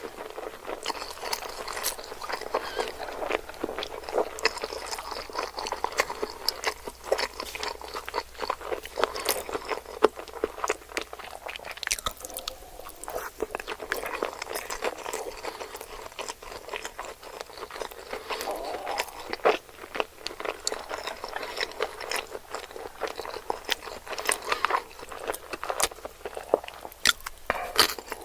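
Close-miked chewing and crunching of sushi: a dense, steady run of small wet clicks and crisp crunches, easing briefly about midway.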